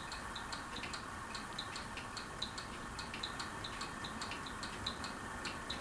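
Regency Oasis ceiling fan running on medium speed, a steady whoosh of motor and moving air, with a light ticking about four times a second. The owner calls the motor noisy.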